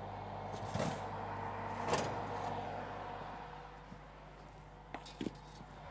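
Metal baking tray being slid out of a wall oven against its rack: a knock about a second in and a louder clank a second later, then two light clicks near the end.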